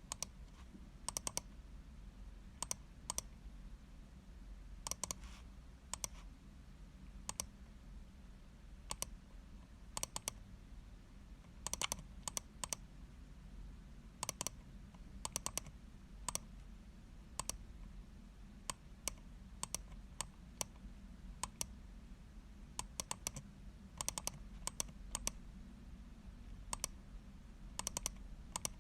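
Computer mouse button clicking: single crisp clicks and quick double-clicks at irregular intervals, over a faint low hum.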